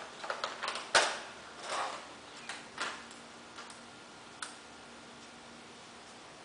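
Small, sharp clicks and taps from handling a glass test ampule and a plastic colour comparator while the ampule is mixed. There is a quick run of ticks, the loudest about a second in, then a few scattered ticks before room tone.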